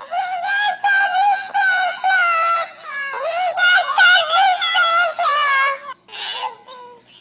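A very high-pitched voice singing a wavering melody in short held phrases, with a brief break about six seconds in.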